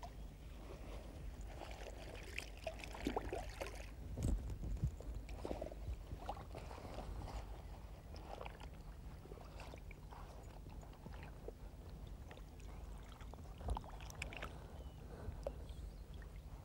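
Faint splashing and sloshing of shallow water as a common carp and a wet sling are handled in it, with a few small knocks and rustles over a low steady hum.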